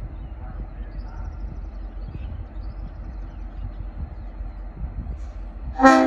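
Steady low rumble in the open air. Near the end a Leslie RS5T five-chime air horn on a V/Line N class diesel locomotive starts sounding suddenly and loudly, a chord of several held tones.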